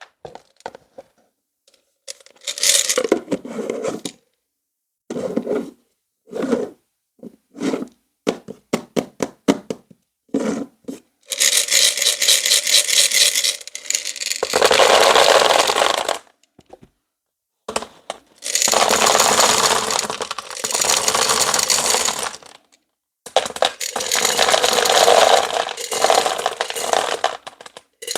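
Close-miked crackling and scraping: a string of short separate crunches, then three long stretches of dense crackle lasting a few seconds each.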